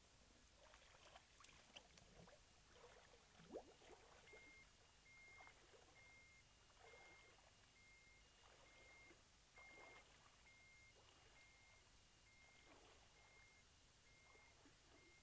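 Faint water splashing and sloshing from wading and sweeping a net through a shallow creek. About four seconds in, a backpack electrofisher's high beep starts, repeating steadily about twice a second: its warning tone while the current is on.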